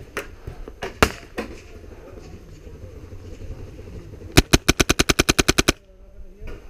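Airsoft rifle firing a fast full-auto burst of about fourteen shots, around ten a second, lasting just over a second. A few single sharp cracks come about a second in.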